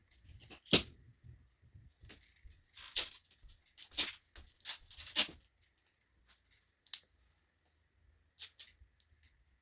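Irregular sharp clicks and short snaps from a 2002 Honda CR-V idle air control valve motor powered with 12 V test leads. It makes noise but does not spin.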